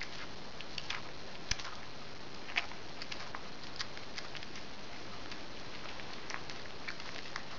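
Domestic cat chewing and crunching a mouse, irregular sharp clicks and crunches, a few louder ones about one and a half and two and a half seconds in, over a steady hiss.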